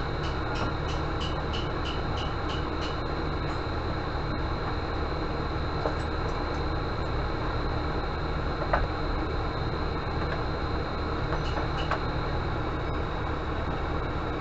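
Steady low rumbling background noise with a faint high whine. A quick run of short high pips sounds in the first few seconds, and a few light clicks come later.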